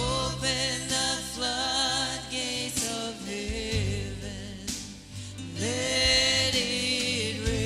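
Live worship music: a singer holds long notes with vibrato over a band playing steady bass notes and a light drum beat.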